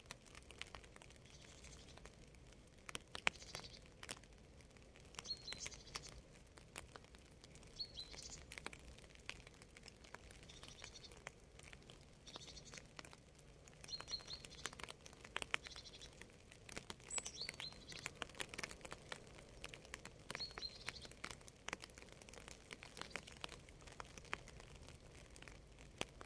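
Raindrops dripping and pattering in scattered clicks, with a bird chirping in short, high, repeated calls every second or two.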